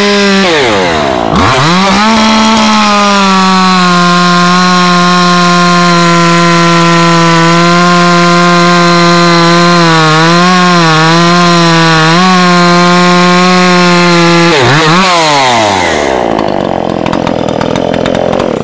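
Dolmar two-stroke gas chainsaw held at full throttle cutting through a log, revs dropping sharply and recovering about a second in and again near 15 s. Near the end the throttle is released and the engine winds down toward idle.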